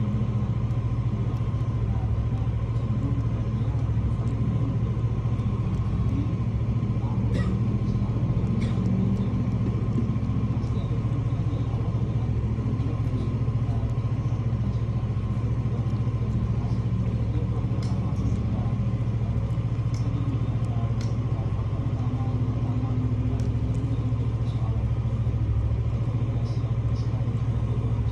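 Steady low hum with faint, scattered ticks over it.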